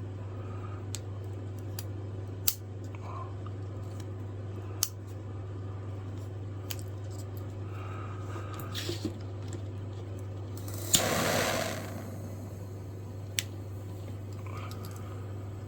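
A pocketknife and spring clamps being handled at a workbench: sharp single clicks a few seconds apart, a few small taps, and a brief scraping rustle about eleven seconds in, over a steady low hum.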